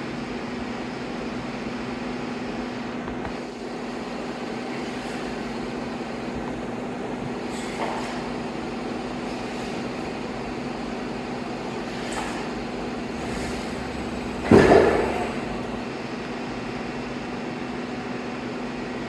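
Brother TC-324N CNC drilling and tapping center running with a steady machine hum and a few light clicks. About three-quarters of the way in there is one sudden, much louder burst that dies away over about a second.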